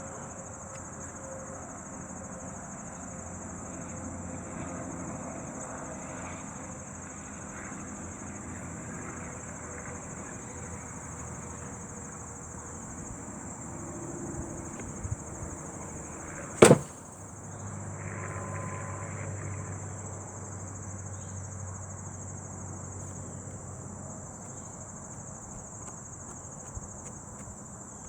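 Steady high-pitched insect chorus, with a diffuse lower hum beneath it and one sharp knock about seventeen seconds in.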